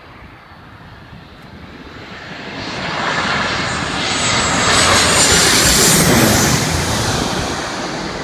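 Twin-engine jet airliner on final approach, gear down, flying low directly overhead. Its engine noise builds over about three seconds and is loudest around five to six seconds in, with a high whine that drops in pitch as it passes. It then fades as the aircraft flies away toward the runway.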